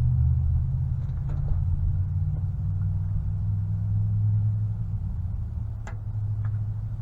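Vehicle engine idling, a steady low rumble, with a few light clicks and one sharper click near the end.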